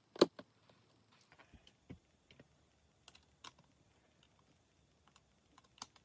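Sparse light clicks and taps of hands working inside an opened Nintendo Switch Lite, pressing cable connectors into place. The sharpest click comes about a quarter of a second in, followed by a few fainter ones spread out over the next several seconds.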